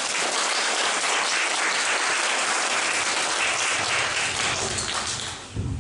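Audience applauding steadily, fading away about five seconds in.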